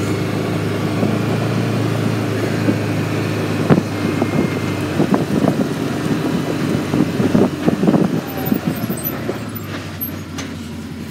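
A vehicle's engine running steadily while it drives, with knocks and rattles, most in the second half. The engine hum fades toward the end.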